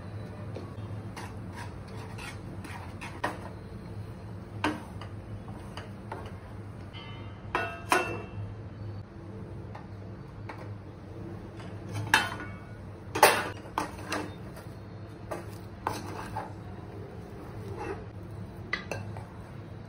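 A metal spatula clinking and scraping against a steel kadhai and its steel plate lid in scattered knocks, as rice flour is mixed into boiled water for bhakri dough; the loudest clanks come a little past halfway.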